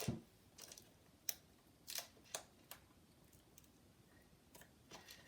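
Faint, scattered clicks and light taps of small hand tools on the iPod Nano's small plastic and metal parts, about seven of them spread irregularly over a few seconds.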